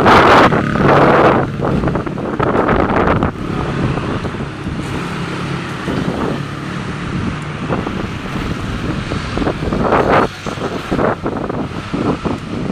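Strong wind gusting and buffeting the microphone, loudest in the first second or so and again about ten seconds in.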